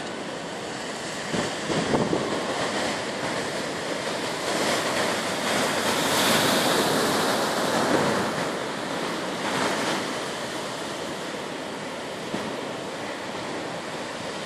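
Heavy storm surf surging and breaking against a seawall, a continuous rush of churning water with wind over it. The rush swells about halfway through, then eases.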